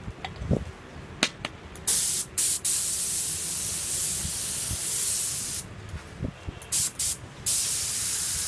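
Compressed-air gravity-feed spray gun hissing, with a knock or two as it is picked up: a few short trigger blips, then a long spray lasting several seconds, more short blips, and a steady spray again near the end as the coating goes onto a ceramic tile.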